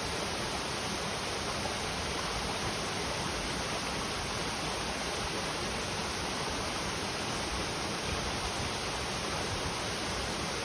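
Clear river water rushing and splashing over its bed, a steady, unbroken noise.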